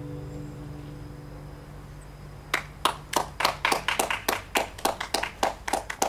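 Final acoustic guitar chord ringing out and fading away, then, about two and a half seconds in, hand clapping starts at about three to four claps a second.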